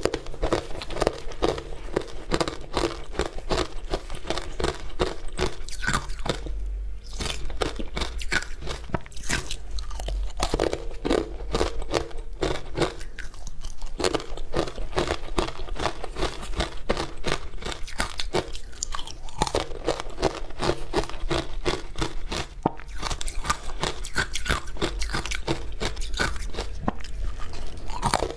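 Crunching and chewing of powdery ice dusted with matcha powder, picked close by a clip-on mic: a dense, unbroken run of fine crackles, with fingers digging into the crumbly ice in the mould.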